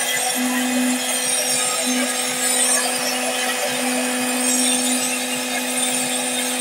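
Hair dryer running steadily, a constant rush of air over a low motor hum, blowing onto an iced-up refrigerator evaporator coil to defrost it.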